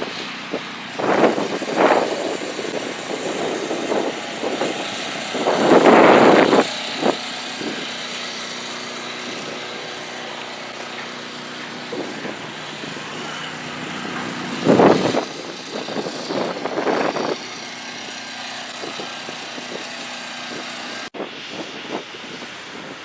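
Demolition derby car engines running, with several louder bursts rising above a steady background.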